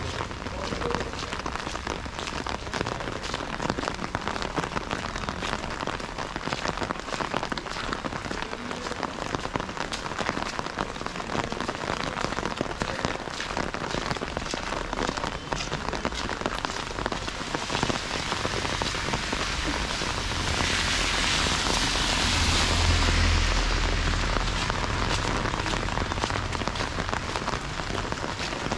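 Steady rain pattering on an umbrella overhead, a dense run of fine drop ticks over an even hiss. Past the middle it swells louder for several seconds with a low rumble underneath.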